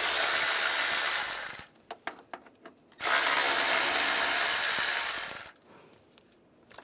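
A power tool spinning a 10 mm socket, running in two steady stretches of about two and a half seconds each as it backs out the two bolts holding a bracket.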